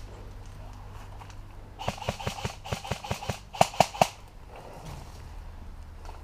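Airsoft guns firing: about a dozen sharp shots in an uneven run lasting about two seconds, starting about two seconds in, the last three the loudest.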